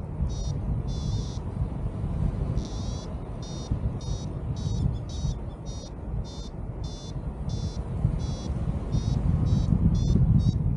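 Paragliding variometer beeping a fast run of short high beeps, about three a second, twice stretched into a longer tone early on and briefly sparser midway; the beeping signals that the glider is climbing. Wind rushes over the microphone underneath, loudest near the end.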